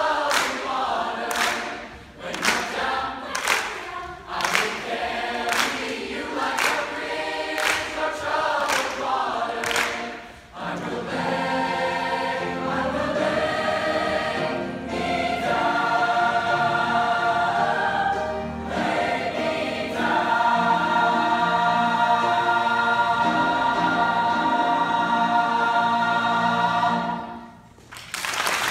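Large mixed choir singing with steady hand claps, about three claps every two seconds, for the first ten seconds. The choir then sings long held chords that build to a final chord and cut off near the end, and applause begins.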